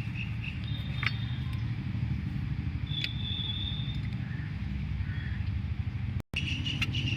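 A steady low hum with two light metal clinks, each ringing briefly, about one and three seconds in, as the handbrake cable is worked free of a drum brake shoe. The sound cuts out for a moment near the end.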